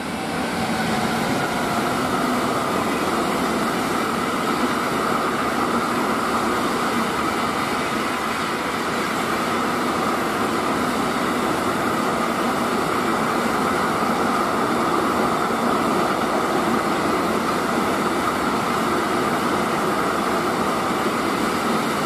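Freight train of empty container flat wagons rolling past close by, a steady rumble and rattle of steel wheels on the rails.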